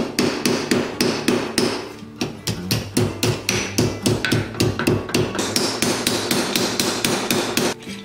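Hand hammer beating a flattened brass .50 BMG cartridge case against a steel block in a bench vise, about four quick sharp blows a second with a short break about two seconds in, stopping just before the end. The brass sides are being bent over into a curved channel to take a leather belt.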